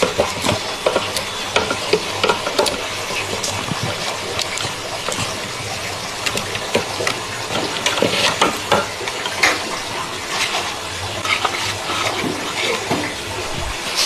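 A steady rushing hiss like running water, with frequent small clicks, clinks and knocks of hard parts being handled.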